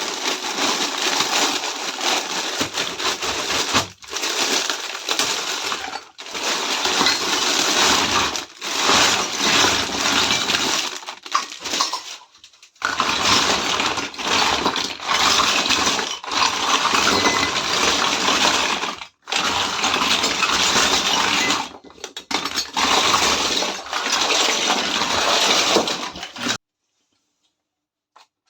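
Close-miked ASMR handling of a miniature toy kitchen set and its packaging: dense crinkling and crackling with small clicks and clinks, cut off abruptly several times and falling silent near the end.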